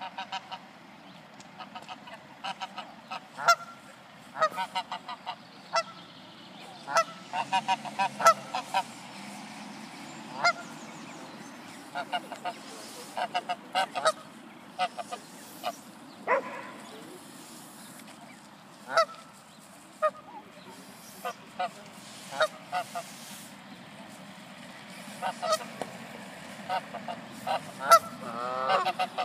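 Canada goose honking in many short, sharp calls in irregular runs: a goose defending her goslings against a swan.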